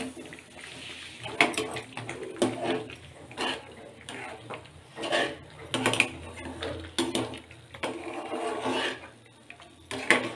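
A metal ladle stirring thick, wet rava kichadi in an aluminium kadai, scraping and knocking against the pan in irregular strokes about once a second. The semolina is being stirred while the last of the water cooks off.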